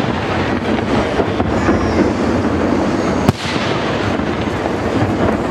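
Aerial firework shells bursting in a display: one sharp bang a little over three seconds in, over a continuous background of noise.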